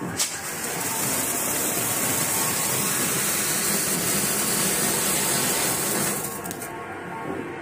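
A Cock brand Golden Penny flower pot (anar) ground fountain firework throwing out sparks with a steady, loud rushing hiss, after a short click. The sharpest part of the hiss falls away about six seconds in.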